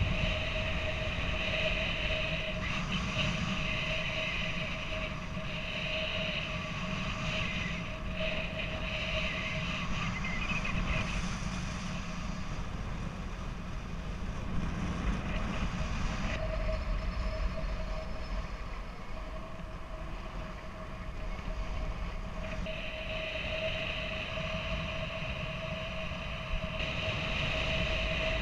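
Wind noise from the airflow over the camera during paraglider flight: a steady rushing with a thin steady whistling tone running through it.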